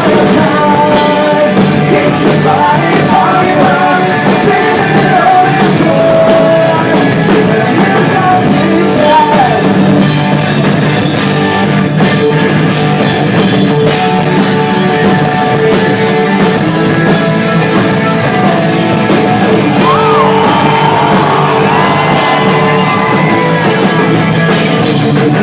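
Rock band playing live and loud, with a singer's voice over the band.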